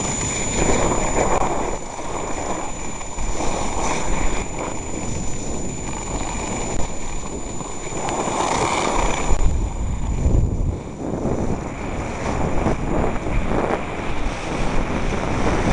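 Wind buffeting the microphone of a moving skier, with the hiss and scrape of skis on snow swelling with each turn.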